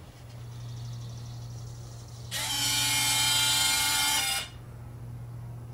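Electric retractable landing gear of an Avios C-130 RC model retracting: a faint servo buzz first, then about two seconds of loud motor whine that starts and stops abruptly. A steady low hum runs underneath.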